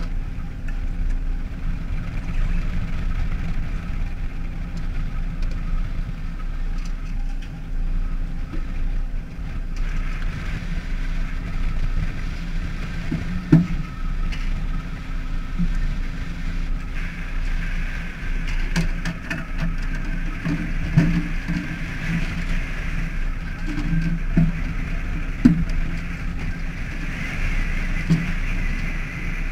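A fishing boat's engine runs with a steady low hum under a hiss of water and wind, and the hiss grows louder about a third of the way in. Occasional sharp knocks come on deck as rods and fish are worked.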